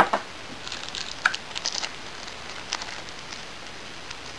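Clear plastic packaging crinkling and crackling as it is handled: the moulded tray and the sealed plastic bags inside it. It comes as a scattered run of sharp clicks and crackles, mostly in the first three seconds.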